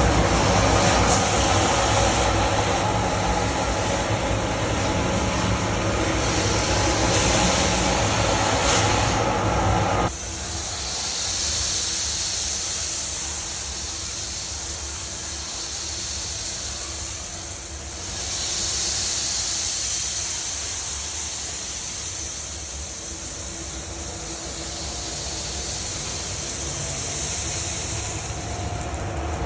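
Industrial central vacuum system with a 10-HP Spencer IndustraVac multi-stage turbine unit running with hoses open: a loud, steady rush of air over a low hum. About ten seconds in it changes abruptly to a quieter, thinner hiss that rises and falls slowly.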